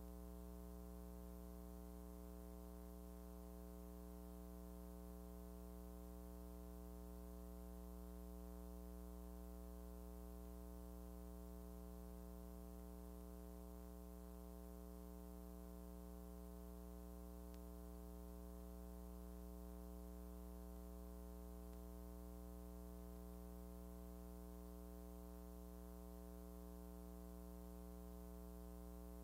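Faint, steady electrical hum with a ladder of overtones, unchanging, on an otherwise silent film soundtrack.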